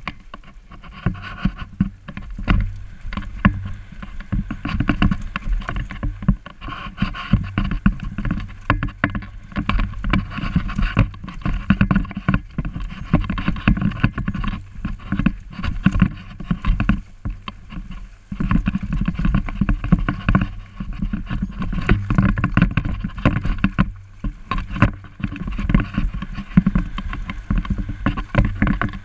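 Mountain bike jolting over a rough, bumpy trail: a continuous clatter of rattles and knocks from the bike over a low rumble, with a few short quieter moments.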